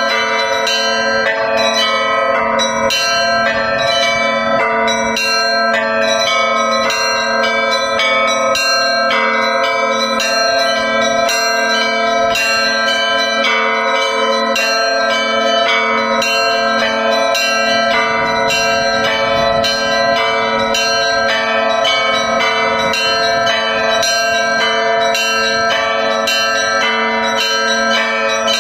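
Russian Orthodox church bells ringing together in a continuous feast-day peal. Quick, repeating strikes of the smaller bells sound over the steady, lingering hum of the larger bells.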